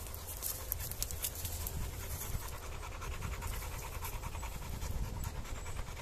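American bulldog panting steadily close by, in quick, even breaths.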